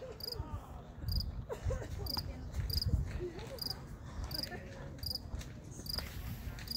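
Cricket chirping steadily, about two short high chirps a second, over a faint low rumble.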